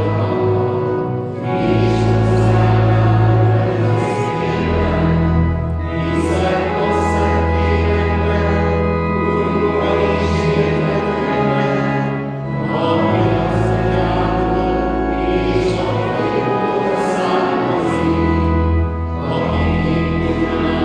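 A church congregation singing a hymn together with organ accompaniment. Sustained low bass notes change every few seconds, with brief breaths between the sung lines.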